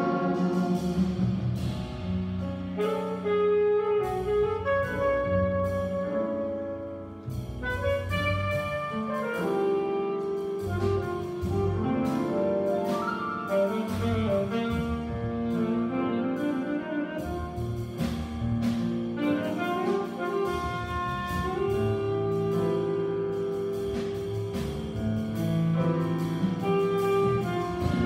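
A youth jazz big band playing live: saxophones and brass holding sustained chords over piano, upright bass and drums. The band drops back briefly about seven seconds in, then swells again.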